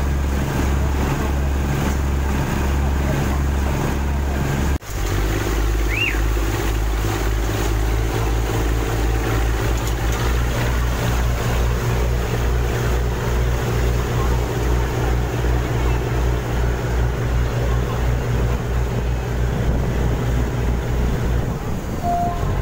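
Chao Phraya Express Boat's diesel engine running under way: a loud, steady drone with a rapid low throb, over the rush of the water in its wake. The sound breaks off sharply for an instant about five seconds in, then carries on.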